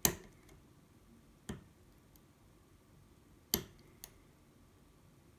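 A few sharp metallic clicks and ticks from a hook pick and tensioner working the tapered pins inside an ASSA 700 pin-tumbler lock held under heavy tension; the loudest clicks come right at the start and about three and a half seconds in, with fainter ticks between.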